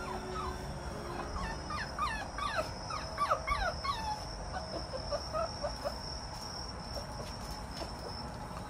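Pungsan puppy whimpering: a quick run of short, high, falling squeaks from about a second and a half in until about six seconds.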